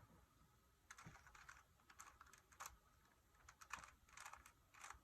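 Faint plastic clicking of a Rubik's cube's layers being turned, in short clusters of quick clicks every second or so.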